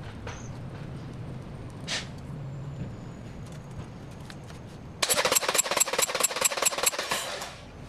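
Honda B18C1 four-cylinder engine turned over on its starter motor for about two and a half seconds, starting about five seconds in, with a fast rhythmic chug of about five compression pulses a second. It is being cranked for a compression test on cylinder 4. A few light clicks come before it.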